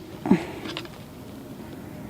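Plastic lock tabs being pushed by hand, giving a few faint clicks, with a short grunt-like voice sound near the start over a faint steady low hum.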